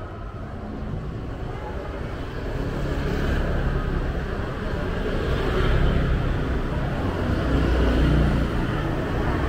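Street traffic: motor vehicles passing close by, their engine noise building after the first couple of seconds and peaking twice in the second half.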